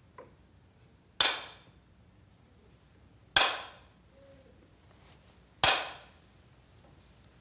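Three sharp strikes of a Seon master's staff (jujangja) on the wooden dharma seat, about two seconds apart, each ringing briefly. This is the ritual staff-striking that opens a Korean Seon dharma talk.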